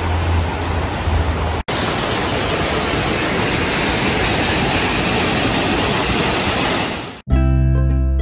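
A steady rushing noise with a low hum, then, after a cut about a second and a half in, a rocky creek rushing and splashing over stones. Plucked-string background music starts near the end.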